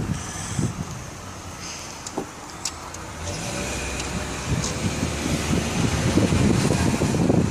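Car driving along a street, its engine and road noise heard from inside the cabin, a little louder from about three seconds in.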